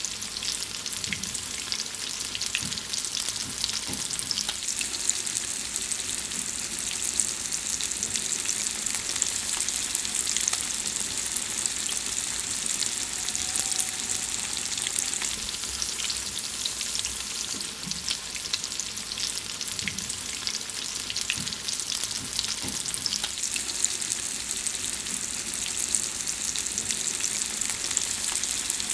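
Food frying in hot oil in a pan: a steady sizzle with constant fine crackling and popping.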